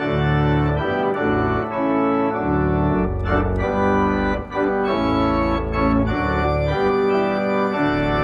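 Content Celeste 340R digital organ playing full sustained chords with a deep bass line, on a principal chorus with mixtures plus chorus reeds (a reed ensemble). The chords change about once a second, with brief breaks about three and four and a half seconds in.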